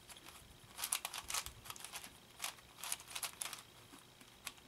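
Plastic clicking and clacking of a ShengShou 4x4 Morphix shape-mod puzzle cube being turned by hand, in short runs of quick turns about a second in and again around the middle.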